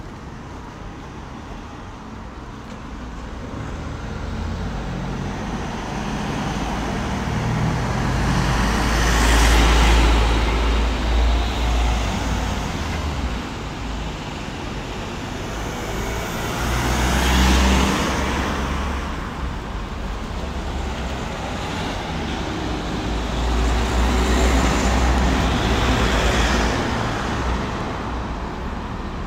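Town-street road traffic: motor vehicles passing close by three times, each swelling up and fading away over a steady background of traffic noise.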